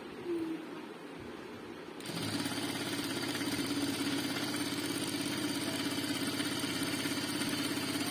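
Jack F4 industrial lockstitch sewing machine starting up about two seconds in and running steadily, stitching through cotton cloth at speed setting 10.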